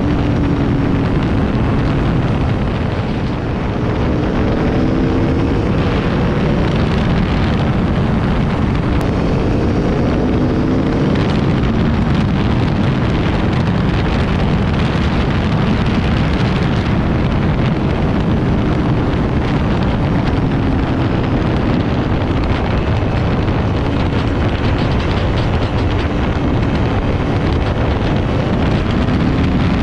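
Aprilia motorcycle engine running at road speed on its stock exhaust, almost buried under heavy wind noise on the microphone. The engine note rises and falls a few times as the throttle is worked, with a brief dip in loudness a few seconds in.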